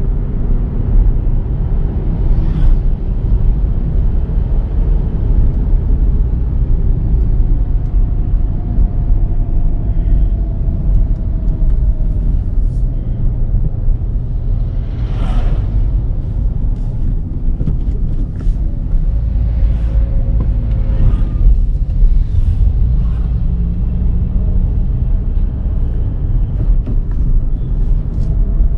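Volkswagen Virtus GT's 1.5-litre turbocharged four-cylinder petrol engine and tyres under way, a loud, steady low rumble with the engine note slowly rising and falling as the car changes speed. There are scattered light clicks, and a brief sharp noise about fifteen seconds in.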